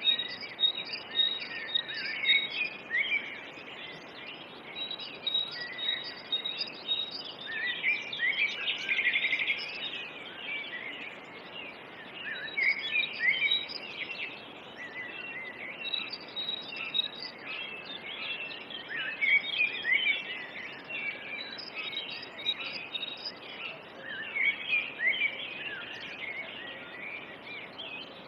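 Several birds chirping and singing, a dense, continuous run of short calls and whistles, with a thin, high, evenly pulsed note beneath much of it and a faint even outdoor hiss.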